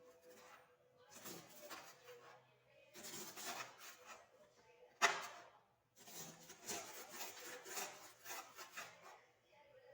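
Knife cutting chard on a wooden cutting board: a faint run of rasping strokes, with one sharp knock about five seconds in.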